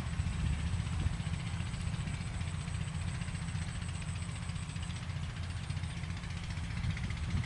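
Farm tractor engine running steadily as it pulls a plough through the soil, a low rumble.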